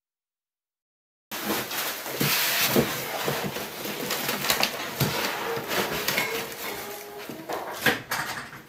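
Handling noise of a large refractor telescope tube being laid into its foam-lined cardboard box, starting about a second in: rustling and scraping of foam and cardboard, with several light knocks.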